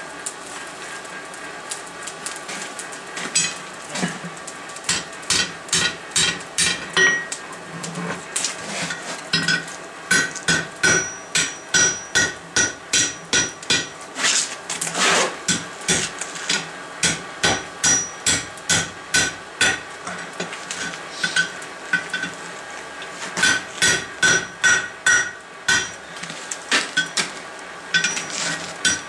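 Blacksmith's hand hammer striking steel on an anvil while forging and bending a campfire poker. It comes in runs of quick blows, about two to three a second, with short pauses between runs, and the anvil rings after each strike.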